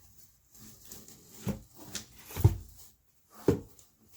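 Hardcover books being handled and set down: a few dull thuds and knocks, the loudest about halfway through, with rustling in between.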